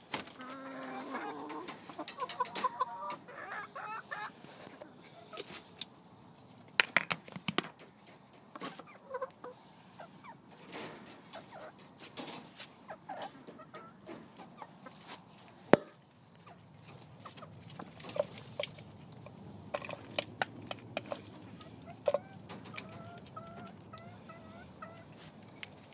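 Hens clucking and calling in short pitched notes, busiest in the first few seconds and again near the end, with scattered sharp clicks and knocks in between, the loudest about seven and sixteen seconds in.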